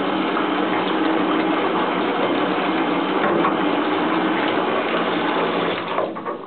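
Steady rush of churning bathtub water with a faint steady hum under it, dropping away about six seconds in.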